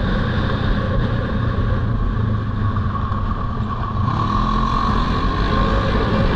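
Polaris Sportsman ATV engine running steadily while riding on a gravel track, picking up a little about four seconds in.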